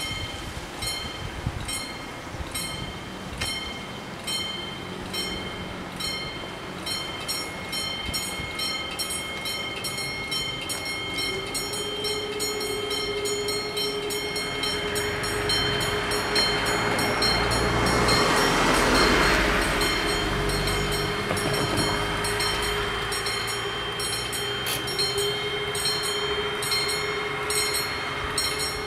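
Level-crossing bells ringing in rapid, even strokes while the crossing is closed. From about halfway through, a regional train passes over the crossing; its noise builds to a peak with a low rumble and then fades while the bells keep ringing.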